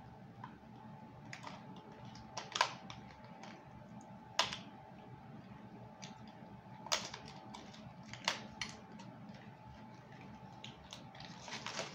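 A plastic battery pack being handled and opened by hand: quiet scattered clicks and crinkles, with a few sharper clicks spread through.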